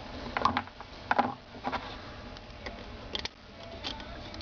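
Irregular light clicks and knocks of small parts being handled, a handful of them spread unevenly, typical of handling a motorcycle carburetor and its fittings.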